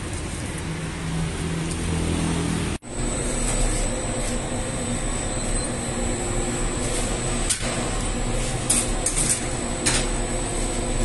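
Steady machine noise in a bakery; after a cut about three seconds in, a dough-sheeting machine runs with a steady hum and a thin high whine, and a few short knocks sound near the end as dough is taken off its rollers.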